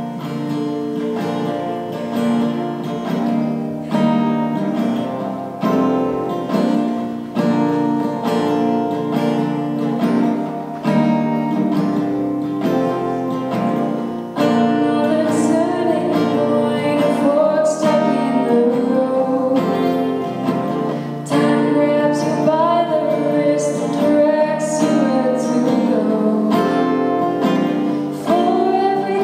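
Acoustic guitar strummed in a steady rhythm, with a female voice singing along from about halfway through.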